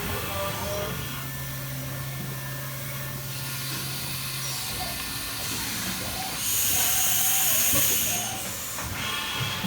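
A 2014 Haas VF-2 CNC vertical machining center running, with a steady hiss and hum. A louder, higher hiss rises for about a second and a half about two-thirds of the way in, and several steady tones come in near the end.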